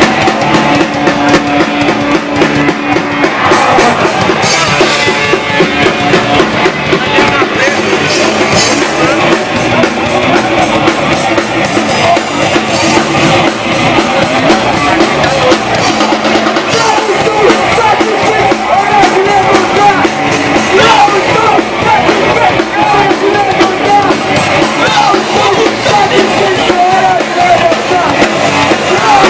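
Old-school punk rock band playing live and loud: drum kit, guitar and bass, with vocals over the band.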